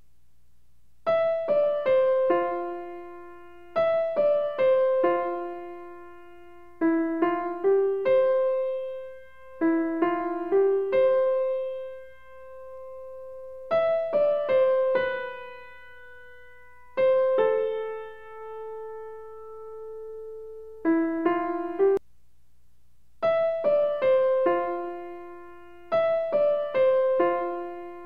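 Background music: a slow keyboard melody in short phrases of a few struck notes that ring and fade, with brief pauses between phrases.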